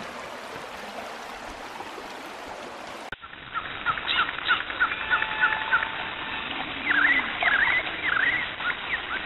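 A shallow rocky creek's water running steadily. About three seconds in, this gives way to a series of quick, rising and falling bird chirps over a faint background of outdoor sound.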